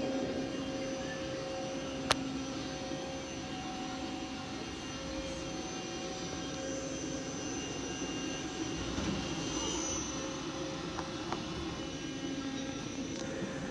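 Steady hum of a powered-up SNK SUT-60 CNC lathe running, with a low, even drone of several steady tones. A single sharp click about two seconds in.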